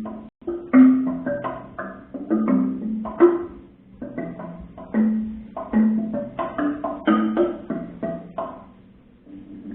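Experimental percussion music: struck instruments played in a loose, irregular rhythm, each note ringing briefly at its own pitch before fading.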